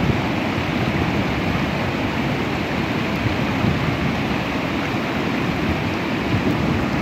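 Steady rush of white water pouring over a low river dam, an even, unbroken noise with no single splashes standing out.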